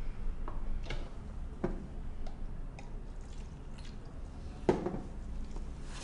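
A few light knocks and clicks of handling, the loudest about three-quarters of the way through, over a steady low room hum, with a short hiss at the very end.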